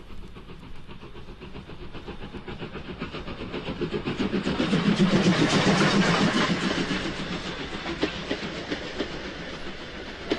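A train passing by, its rumble and rapid wheel clatter on the rails. The sound swells to its loudest about five to six seconds in, then fades away.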